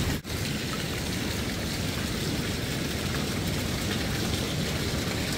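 Steady, even rush of pool water sloshing around a camera held at the water's surface, with a brief dropout a moment in.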